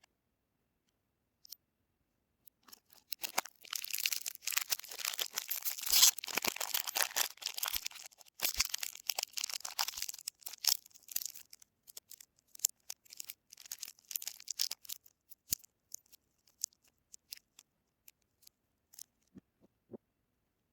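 Soap wrapping being torn open and crinkled: a dense run of tearing and crinkling starts about three seconds in and is loudest around six seconds, then thins to scattered crackles and light ticks toward the end.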